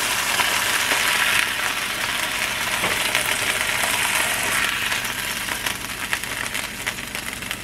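Hot oil sizzling in a skillet as browned chicken breasts are lifted out with metal tongs, with a few light clicks of the tongs; the sizzle fades toward the end.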